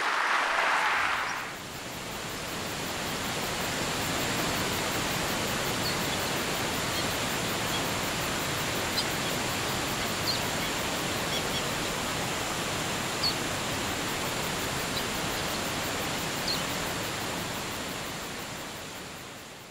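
Steady rush of a waterfall, with a few faint, short bird chirps now and then, fading out at the very end. A brief burst of applause opens it.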